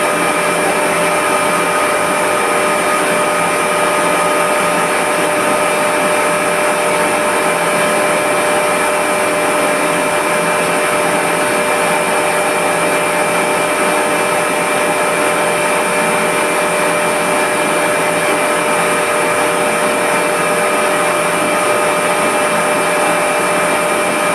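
Large electric motor and horizontal multistage pump of a reverse osmosis plant running steadily: a loud, even machine noise with a constant whine of several steady tones.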